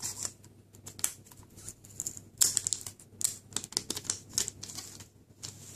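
Clear plastic film being peeled off the Apple EarPods' hard plastic case, with fingers on the case: irregular crinkling and sharp clicks.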